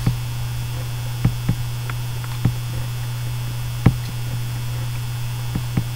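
Steady low electrical mains hum picked up on a computer webcam recording, with about seven short, sharp clicks scattered through it, the loudest about four seconds in.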